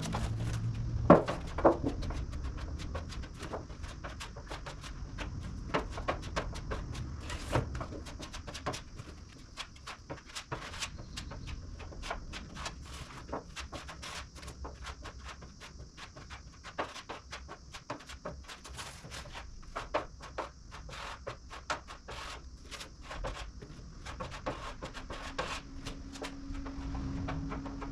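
Body filler being mixed and spread with a spreader: irregular scraping and light clicks of hand work. A steady low hum comes in near the end.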